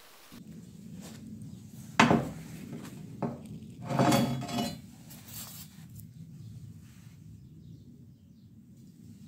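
A length of steel rebar clanking against a workbench as it is set down and handled: one sharp metallic knock about two seconds in, a lighter one soon after, then a longer clatter, over a low steady hum.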